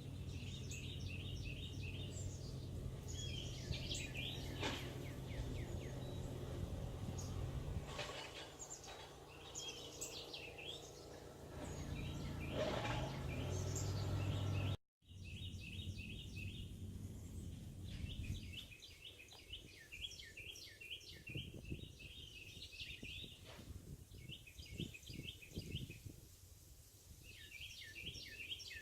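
A songbird sings a short run of quick chirps, repeated again and again. A steady low hum runs under the first two-thirds and then stops. The sound drops out for an instant about halfway through.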